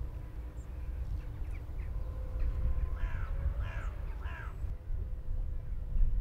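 A crow cawing three times in quick succession, the calls about two-thirds of a second apart, over a low steady rumble, with a brief louder thump near the end.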